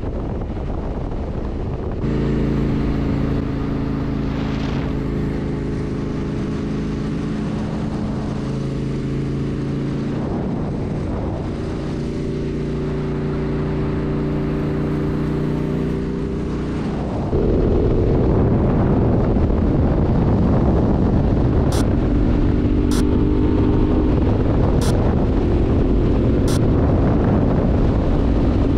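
Yamaha Tenere 700's parallel-twin engine running at steady cruising revs, with wind noise on the microphone. About two-thirds of the way through, the sound steps up louder and rougher.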